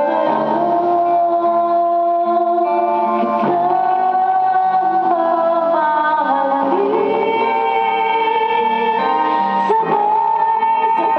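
Karaoke: a woman singing a slow ballad into a microphone over a backing track, holding long notes.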